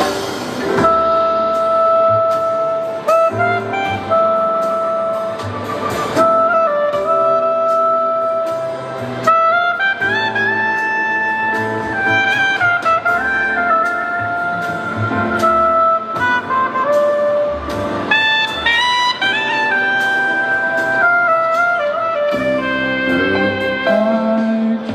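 Instrumental interlude of a pop ballad's backing track: a solo lead melody in long held notes that step up and down, over steady accompaniment.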